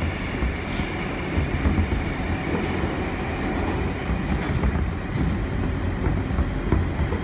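Inside a moving R143 subway car: the steady rumble and rattle of the car running on the rails, with a few sharp clicks late on.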